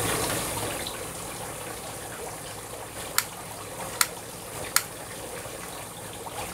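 Long-neck utility lighter's igniter clicking three times, sharp clicks under a second apart, over a steady low hiss: repeated tries to get the lighter to catch on the charcoal fire starter.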